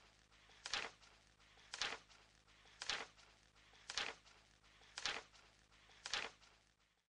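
Slow footsteps: seven even steps about a second apart.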